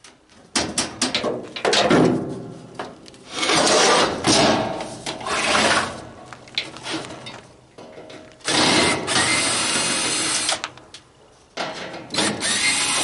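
A power drill running in several bursts of varying length, the longest a steady run of about two seconds near the middle, with handling noise in between.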